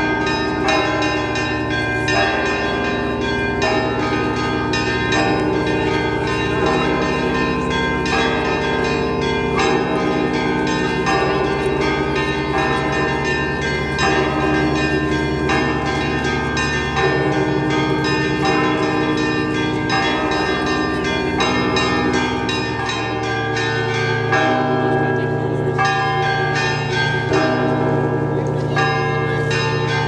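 Russian Orthodox bell ringing on the Rostov kremlin belfry: many bells struck in quick repeated patterns, with the low tones of the large bells ringing on underneath.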